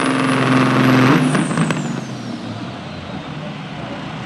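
Diesel semi truck engine at full throttle pulling a sled, its turbocharger whistle climbing. About a second in the throttle is let off: the engine drops away and the turbo whine winds down.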